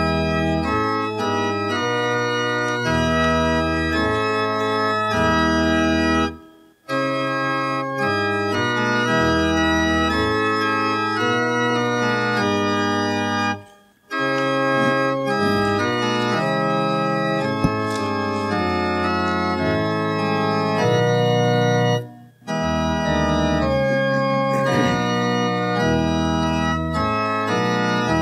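Organ playing slow, sustained chords in phrases of several seconds, with three brief breaks between phrases.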